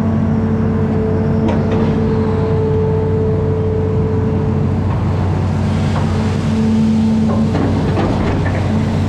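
Amphibious excavator's diesel engine running steadily under work, with a steady whine that comes and goes and a few scattered knocks.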